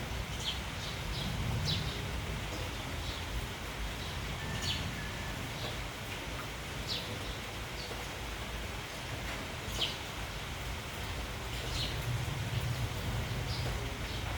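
Sparrows giving short, scattered chirps over a steady hiss of rain, with wind gusting low, once near the start and again toward the end.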